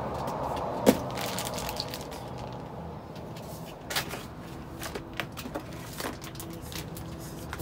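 Cardboard boxes and plastic-wrapped food being rummaged and shifted in a dumpster with a reach grabber: crinkling and scraping, a sharp knock about a second in, and a few lighter knocks later.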